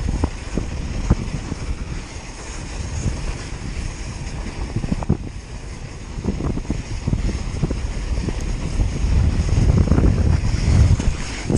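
Wind buffeting the microphone of a mountain bike's action camera at speed, over the hiss of tyres on rutted snow, with scattered knocks and clatter from the bike over the ruts. The wind rumble grows stronger near the end.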